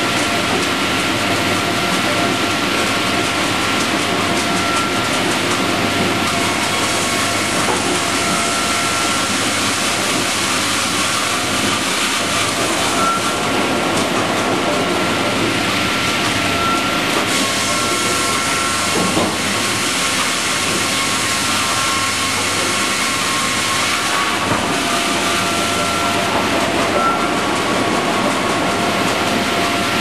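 StrojCAD D9 double-bladed circular sawmill running: a loud, steady machine din with several steady whining tones, as sawn boards are carried out on its roller conveyor.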